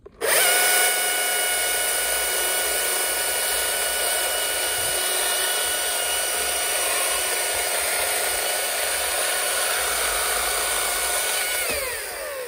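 Husqvarna battery chainsaw on a BLi300 battery starting up and cutting through a log. The electric motor and chain give a steady whine at full, even power, then wind down with a falling whine near the end as the cut finishes.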